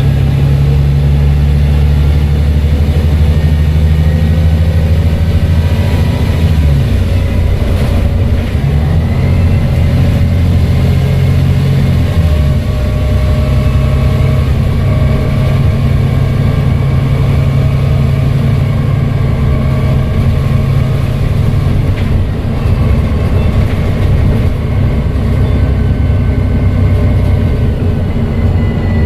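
Volvo B7TL double-decker bus's straight-six diesel running under way, with a thin turbo whistle that slowly rises in pitch over the low engine drone. The engine note changes about seven and again about twelve seconds in.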